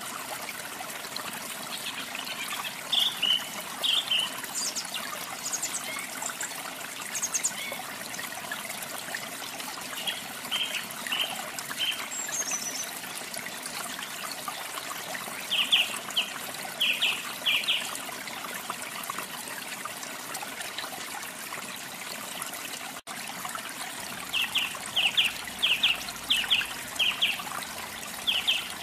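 Steady trickling rush of flowing water, with a small songbird chirping in short groups of quick, high notes every few seconds.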